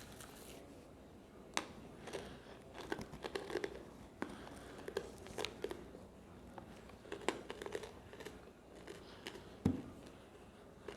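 Plastic packaging and containers being handled: intermittent crinkling and rustling with light clicks and taps, and one firmer knock near the end.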